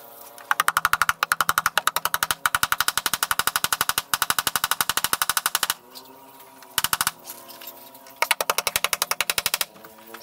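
Cordless drill driving screws into plywood decking, running with a rapid, even clicking rattle. There is one long run of about five seconds, then two short runs.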